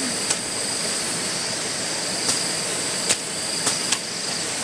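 Steady outdoor hiss carrying a constant high insect drone, broken by about half a dozen sharp clicks or knocks spread through it.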